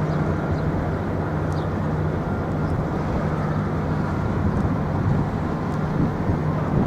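A steady engine drone: a constant low hum over a continuous rumble of outdoor traffic-like noise.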